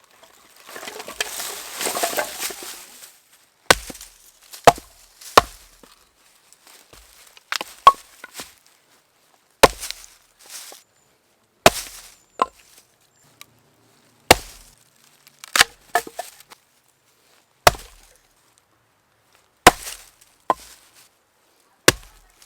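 Wood being chopped: about fourteen sharp, separate blows, roughly one every second or two, some in quick pairs. A short rustle comes first.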